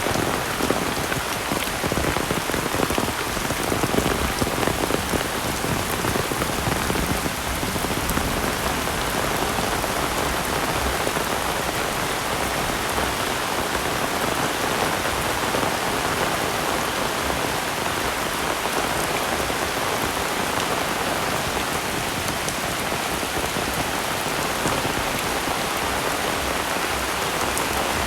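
Heavy rain falling, a steady dense hiss of rain on surfaces.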